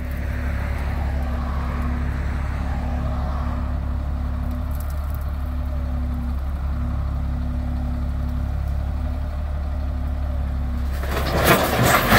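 Dump truck engine running steadily while the raised bed tips. About eleven seconds in, crushed stone and a large boulder start sliding out of the bed with a loud rushing rattle.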